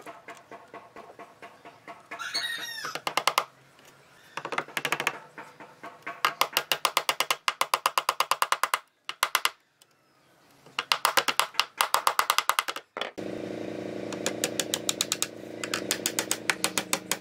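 Hammer tapping small nails through a metal hinge into wood, in quick runs of light taps, several a second, with short pauses between runs.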